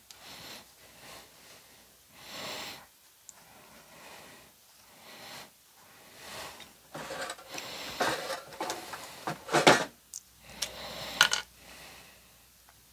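Cloth rustling as it is handled, with the sewing machine stopped: a series of short rustles, the loudest ones a few seconds before the end.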